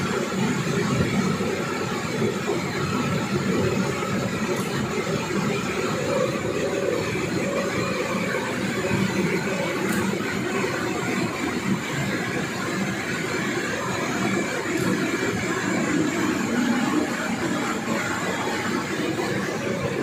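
Steady, dense mechanical noise of a 120 bottles-per-minute production line and its air conveyor running, with no clear rhythm.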